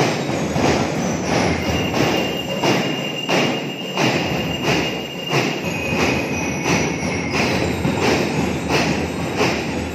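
School drum and lyre corps playing a march, its snare and bass drums beating a steady rhythm of about two beats a second. A high steady tone is held for several seconds in the middle.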